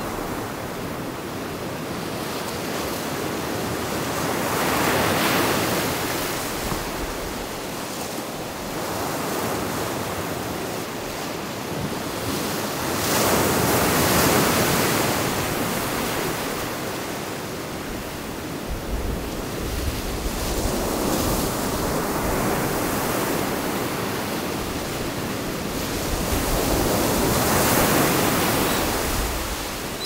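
Sea surf breaking and washing up a sandy beach among rocks. The wash swells and fades four times, roughly every seven to nine seconds.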